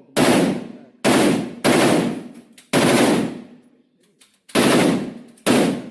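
A select-fire firearm set to fully automatic, fired in six short, loud bursts with gaps of roughly half a second to two seconds between them.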